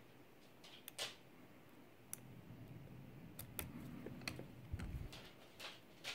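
Faint, irregular small clicks and light scraping of a lock pick and tension wrench working the pins inside a Yale pin-tumbler lock, with low handling rumble from about two seconds in.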